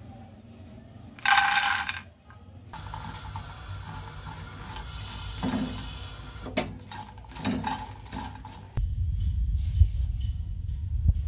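Whole dried red chillies tipped into a nonstick frying pan with a brief loud rattle, then dry-roasting while a plastic spatula scrapes and knocks them about the pan. Near the end, a steady low rumble takes over.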